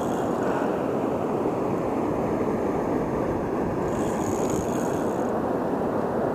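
Steady rush of river water pouring over a low dam, an even roar without breaks.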